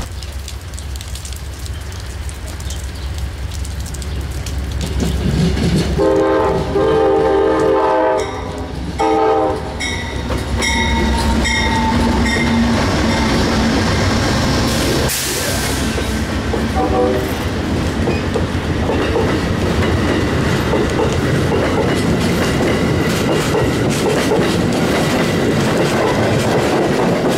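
Amtrak passenger train hauled by a GE Genesis diesel locomotive, blowing a chord horn in two blasts about six seconds in, then passing close by. The locomotive and a string of passenger cars rumble past, with wheels clicking over the rail joints.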